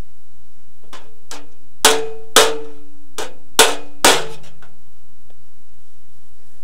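Body hammer striking the thin sheet-steel side of a Willys MB Jeep grille against a dolly: about seven metallic taps between one and four seconds in, four of them loud, each with a brief ring. Hammer-and-dolly work knocking a crease out of the panel.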